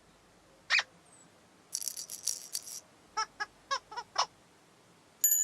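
Playful children's-TV sound effects: a short squeak, a brief high clatter like a shaken rattle, five quick squeaky notes, then a bell-like chime near the end.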